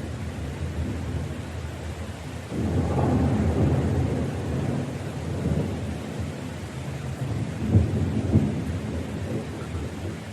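Thunder rumbling over steady rain. A long rumble swells up a couple of seconds in, and two sharp cracks of thunder come about three quarters of the way through before the rumble eases off.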